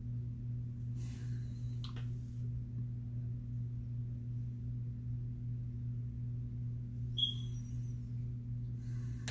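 A steady low hum throughout, with faint scratchy marker strokes on paper about a second in and again from about seven seconds on, and a brief high squeak just after seven seconds.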